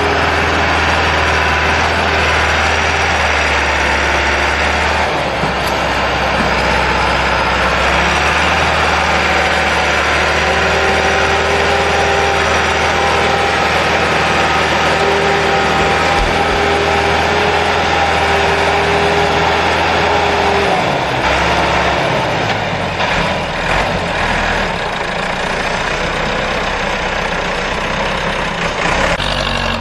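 Tractor engines running loudly and steadily. The deep low drone drops away about twenty-one seconds in.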